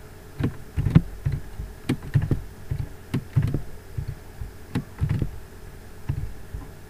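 Computer keyboard keystrokes and mouse clicks: irregular sharp clacks, each with a dull low thud, a few a second, over a faint steady electrical hum.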